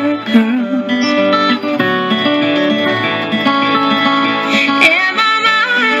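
Instrumental break of a country song, led by guitar over the band.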